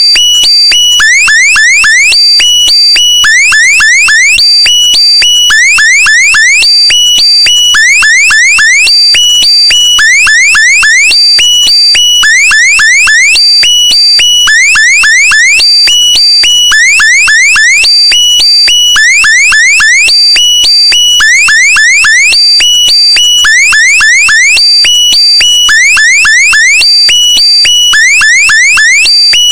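Electronic meme sound effect looped without a break: a loud burst of quick upward-sweeping chirps over steady high tones, repeating in an even cycle roughly every second.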